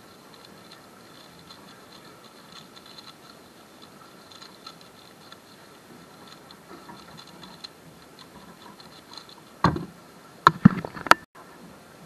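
Valk 3 speedcube being turned fast, a faint rapid clicking and clattering of its plastic layers. Near the end come a few loud knocks, fitting the cube being set down and the hands slapping the timer at the end of the solve.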